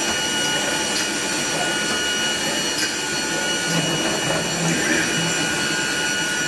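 Masterwood Project 300 CNC router running, a steady machine sound with several high whining tones over a hiss.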